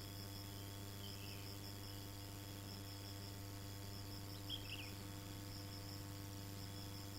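Insects chirping in a steady, rapid, pulsing trill over a steady low hum, with a short high falling call about a second in and another about four and a half seconds in.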